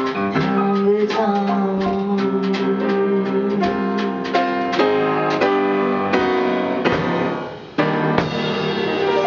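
Live jazz piano playing held chords and struck notes, with a short drop in level about seven and a half seconds in before a strong new chord.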